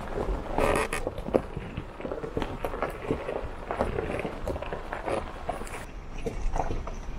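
Tyres crunching and popping over loose stones and rock as an Isuzu D-Max pickup camper crawls along a rough gravel track, with many irregular clicks and knocks over a low rumble.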